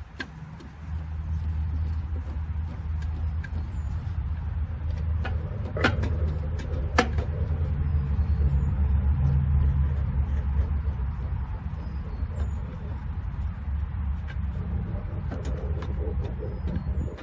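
Low steady rumble, like a motor or engine running, that cuts off suddenly at the end, with a few sharp clicks in the middle and faint bird chirps.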